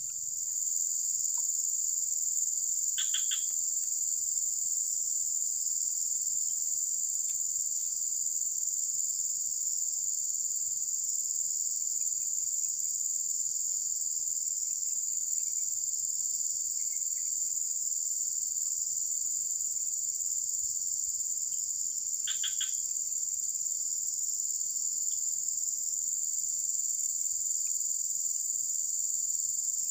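Steady high-pitched drone of an insect chorus in swampy vegetation, unbroken throughout. Two short chirps stand out over it, one about three seconds in and another about twenty-two seconds in.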